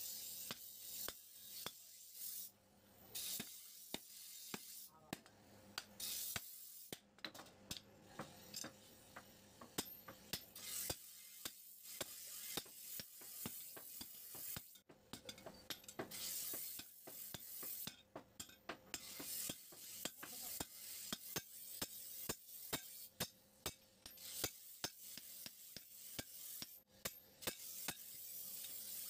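Hand hammer striking a red-hot spring-steel cleaver blade on an anvil: many sharp, irregular blows, with short bursts of hiss between them.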